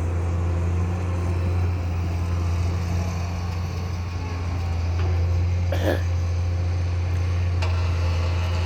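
Excavator's diesel engine running steadily with a low drone, with a brief higher sound about six seconds in.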